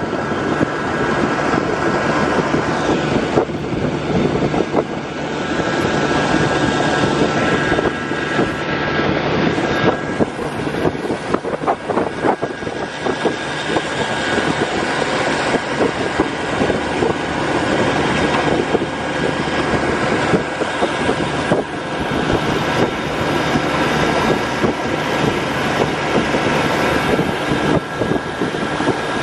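A motor engine running with a steady drone that holds at an even level throughout.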